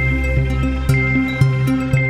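Background music: electronic tune with a steady beat and held synth notes.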